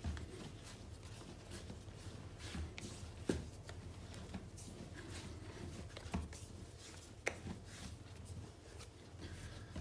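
Hands kneading a ball of bread dough on a floured bench: soft rubbing and scuffing as the dough is folded over and rolled, with a few light knocks as it is pressed down.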